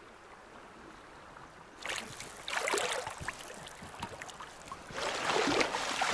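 Water splashing and sloshing in a shallow river: near quiet at first, then irregular splashes starting about two seconds in and growing louder near the end.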